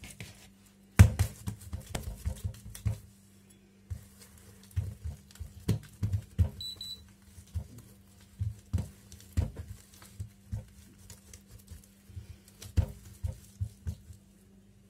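Oiled dough for malawi flatbread being slapped, pressed and stretched by hand on a marble countertop: a run of irregular soft slaps and taps, the sharpest about a second in. A short high beep sounds once about six and a half seconds in, over a faint low hum.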